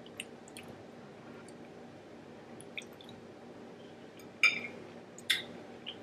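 Soft wet eating sounds from king crab meat dipped in garlic butter and sauce: scattered faint mouth clicks and squelches, with two louder wet smacks about four and a half and five and a half seconds in.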